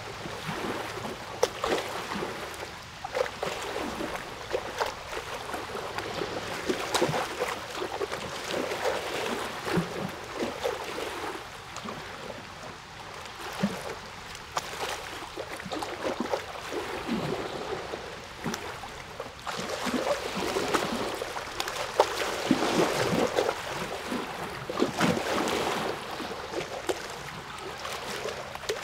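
Moving water lapping and splashing: an irregular run of small splashes over a steady rush.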